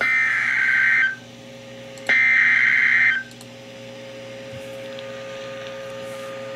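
Two bursts of Emergency Alert System SAME header data from a NOAA Weather Radio broadcast, each a harsh, buzzing rush of rapid data tones about a second long, the second starting about two seconds in. Between and after the bursts there is a faint steady hum and hiss.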